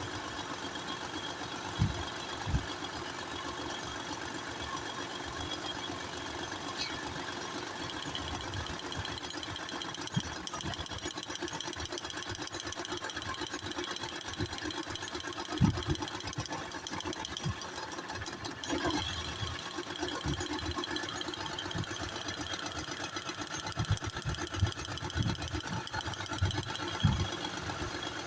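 Car engine running at idle with a fast, steady ticking over it, and a few short low thumps.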